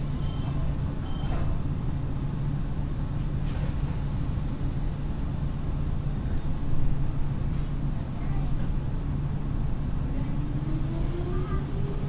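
Nankai electric train standing at a platform with a steady low hum. About ten seconds in, its traction motors start up with a whine that rises steadily in pitch as the train pulls away.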